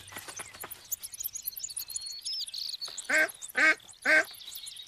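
A duck quacks three times in quick succession about three seconds in, over constant high bird twittering.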